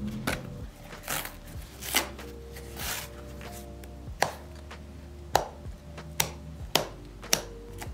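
Sharp snips as a small hooked blade cuts through the stitching of a leather boot's moc-toe seam, about one a second at irregular spacing, with faint background music.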